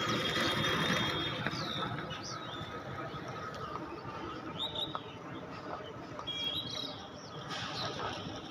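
Birds chirping in short, scattered calls over a steady background of outdoor noise.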